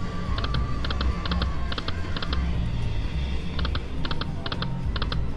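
Lightning Link Sahara Gold slot machine spinning its reels: a run of quick, paired electronic ticks repeating several times a second, over the machine's looping background music.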